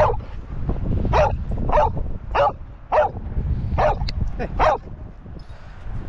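Spanish Water Dog barking for a ball: about seven short barks at an even pace over the first five seconds, with wind rumbling on the microphone.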